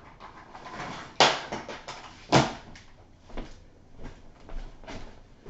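Handling noise while a laptop charger is being plugged in: two loud sharp knocks about a second and two seconds in, then a few softer knocks.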